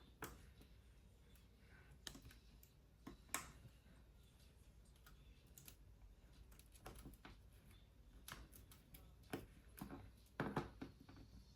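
Faint, irregular small clicks and taps of a phone repair: tools and flex cable connectors being handled and pressed back onto the iPhone 11's logic board.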